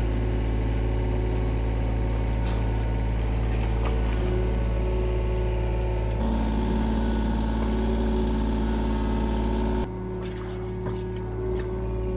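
John Deere 35G mini excavator's three-cylinder diesel engine running steadily as the bucket digs in wet mud. Its tone changes about six seconds in, and a few faint knocks come through.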